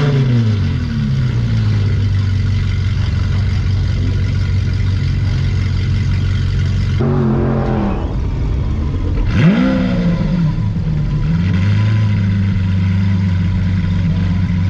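Car engine running steadily, with a quick rev that drops away at the start and another sharp blip of the throttle about nine seconds in.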